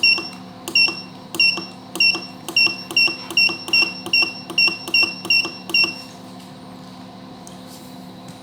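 Control panel of a Glacio 85 L fridge freezer beeping at each press of the temperature-up button: about a dozen short high beeps, coming slightly faster, stopping about six seconds in. The fridge's compressor hums steadily underneath.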